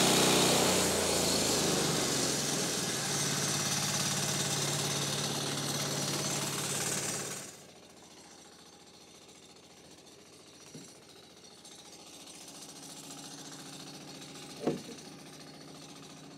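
Engine-driven portable bandsaw sawmill running loudly with its blade spinning as it comes out of a cut through a timber baulk, then easing off. About seven and a half seconds in the engine drops to a faint idle, and near the end there are two knocks of sawn timber being handled, the second louder.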